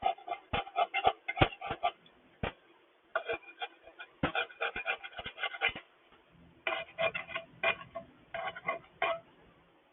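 A gasket scraper scraping old gasket material off the aluminum mating surface of a Honda GCV160 engine block, in quick short strokes that come in three runs with short pauses between.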